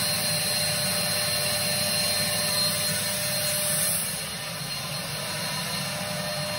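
Spray-tan machine's turbine blower running steadily, with air and tanning solution hissing from the hand-held spray gun and a thin steady whine over it. It gets a little quieter after about four seconds.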